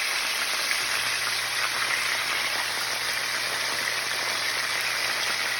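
Tilapia pieces frying in hot oil in a pan: a steady sizzle.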